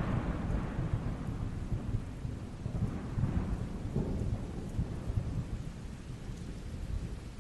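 Rolling thunder rumbling and slowly dying away, with two smaller swells about three and four seconds in, over steady rain.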